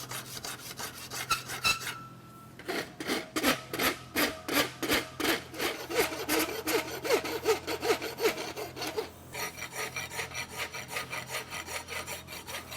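Farrier's rasp filing an aluminum horseshoe in repeated back-and-forth strokes, about three a second, with a short pause about two seconds in.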